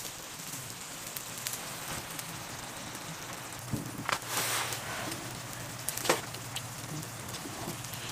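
Crackling of a wood fire in a camp stove with a simmering stew, a steady patter broken by scattered sharp clicks and pops, and a brief rustling burst about four seconds in.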